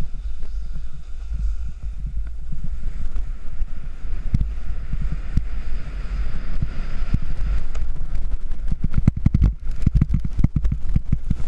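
Wind buffeting a GoPro microphone on a moving snowboarder, a constant low rumble. From about eight seconds in comes a quick run of knocks and scrapes as the board moves on the snow.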